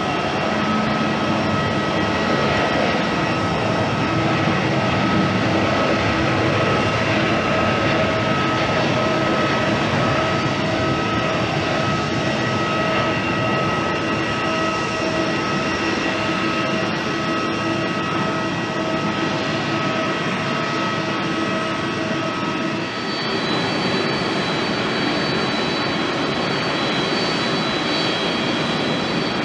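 Jet airliner engines running steadily with a high whine over a broad rush: first an ANA Boeing 787-8, then, after an abrupt change about 23 s in, an ANA Boeing 767-300ER with a different set of whining tones.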